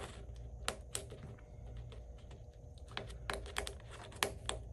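Light clicks and taps as a new 14 mm edge guard is pressed and worked onto the rim of a pickleball paddle for a test fit: a couple about a second in, then a quicker cluster near the end.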